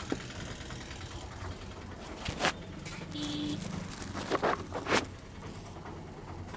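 Sharp hand smacks of a head massage: one about two and a half seconds in, then three more in quick succession near the end. A steady low traffic rumble runs underneath.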